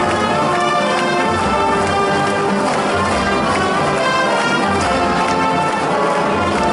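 Marching band playing, with sustained brass chords over a drum beat that keeps a steady pulse a little under a second apart, heard from far up in the stands of an open stadium.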